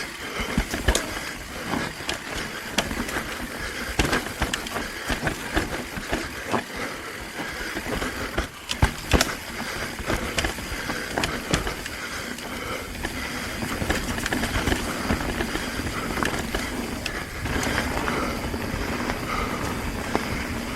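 Mountain bike descending a rough trail: tyres rolling over the ground and the bike rattling, with many sharp knocks as it hits bumps and obstacles.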